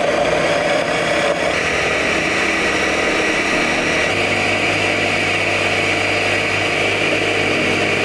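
Countertop blender running steadily as it blends a sauce, its motor tone shifting slightly twice.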